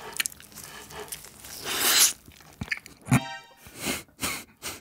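Close-miked biting and chewing of a steamed dumpling, in short bursts. A brief musical sound effect plays a little past the middle.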